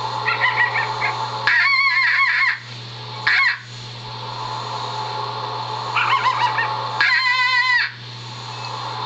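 Five short, high, wavering animal cries, each under a second long, from a coyote hunting video playing on a television, over a steady low hum.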